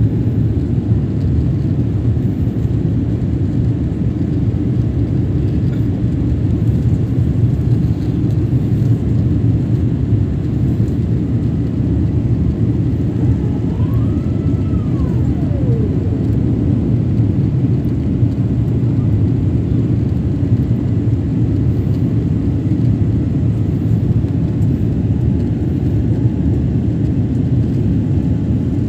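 Steady low rumble of a jet airliner's cabin noise, engines and rushing air heard from a window seat during the climb after takeoff. About halfway through, a faint tone rises and falls over a couple of seconds.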